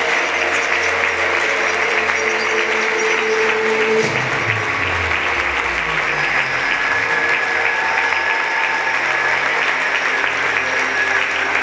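Audience applauding steadily over music, with a low bass line stepping downward about four seconds in.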